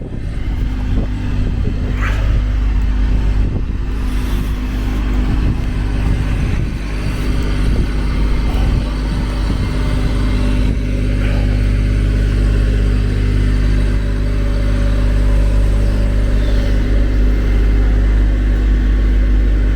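Engine of a truck-mounted cherry picker running steadily, a low, even hum that does not rise or fall.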